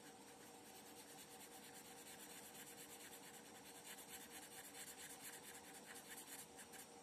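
Green felt-tip sketch pen scribbling on a workbook page: faint, quick back-and-forth scratching strokes while an area is coloured in.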